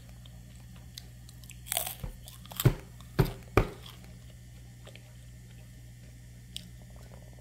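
A baby chewing and crunching a baby rice cracker, with a crackly burst about two seconds in, followed by three sharp knocks in quick succession.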